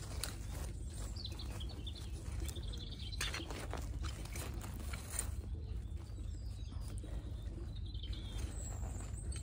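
Hand trowel digging and scraping in garden soil, with the crackle of ground elder roots tearing as they are pulled out. Birds chirp now and then, with one high call near the end.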